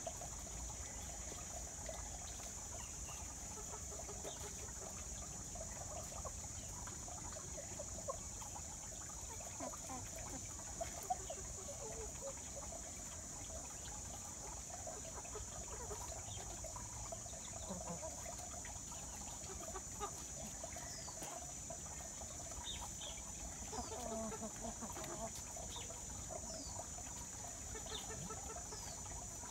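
Chickens clucking softly now and then as they forage, with a few brief high falling chirps. A steady high-pitched hiss runs underneath.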